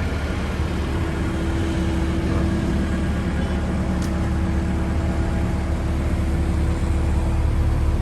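A vehicle engine idling steadily: a low, even rumble with a steady hum that comes in about half a second in.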